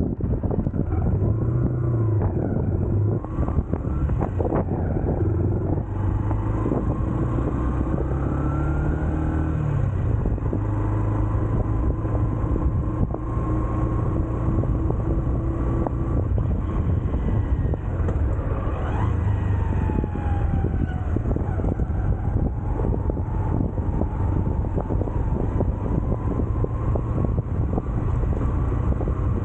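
Honda CB125F's single-cylinder four-stroke engine running under way in city traffic. Its note rises about eight seconds in, then drops back and holds steady.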